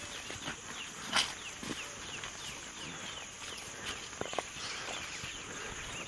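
Several people walking through dry grass and brush: footsteps and rustling vegetation, with one sharper snap about a second in. Faint chirping runs in the background.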